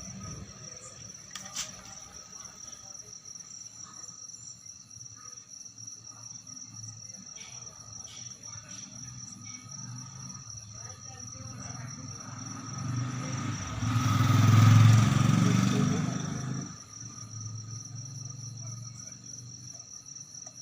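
Steady background chirping of crickets. About two-thirds of the way through, a passing vehicle's engine rumble swells to the loudest point and fades away over about four seconds.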